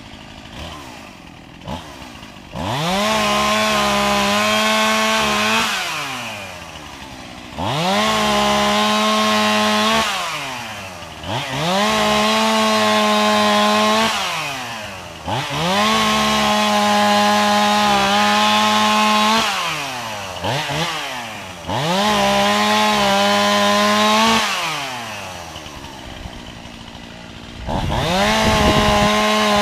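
Chainsaw revved to full throttle six times, each rev climbing quickly to a steady high-pitched run held for about three seconds before falling back to a low idle.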